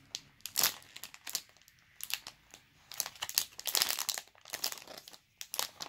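Clear plastic packaging bag crinkling in short irregular bursts as hands squeeze the squishy toy sealed inside it.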